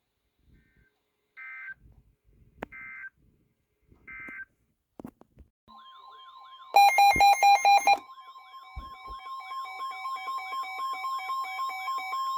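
Emergency Alert System tones: three short data bursts about a second apart, typical of an end-of-message signal. Then, near the middle, a loud harsh pulsing burst starts, followed by a steady alert tone under a fast-warbling, siren-like wail.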